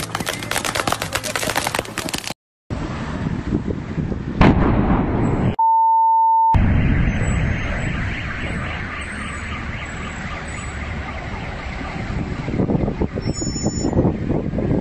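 Handheld firework fountains crackling and hissing. After a brief break, a large fireball explosion goes off with a sudden loud blast about four seconds in. A steady beep about a second long follows, then a long rumble of the fire and traffic noise.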